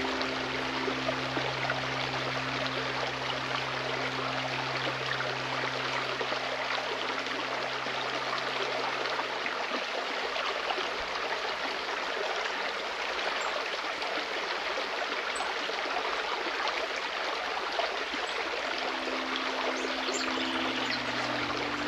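Forest stream running steadily, an even rush of flowing water. Soft sustained background music notes sound under it, stop about halfway through and return near the end.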